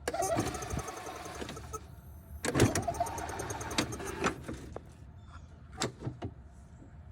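Golf cart's starter-generator whirring in two short bursts of about two seconds each, cranking without the engine catching: a no-start. A few sharp clicks follow.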